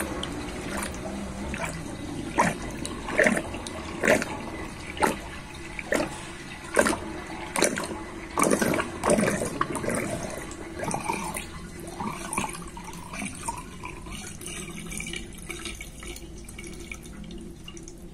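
Water draining from a sink in a whirlpool, gurgling down the plughole in sharp gulps about once a second. The gulps grow smaller and fade as the sink empties.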